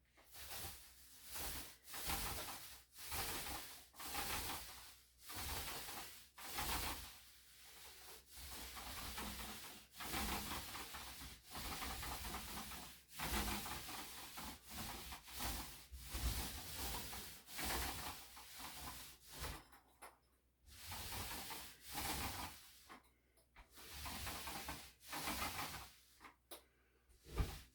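Rhythmic rubbing strokes of a primer applicator worked back and forth over drywall, roughly one to two strokes a second, with a few short pauses.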